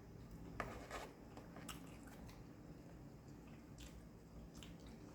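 Quiet chewing and mouth sounds of a person eating, with a few faint, crisp clicks scattered through.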